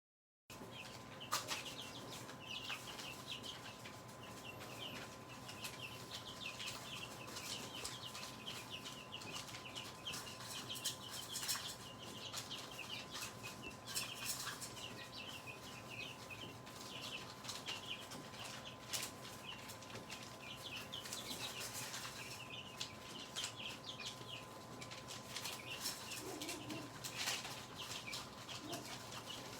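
A brood of baby chicks peeping steadily, many short high chirps overlapping, with occasional clicks and scuffles.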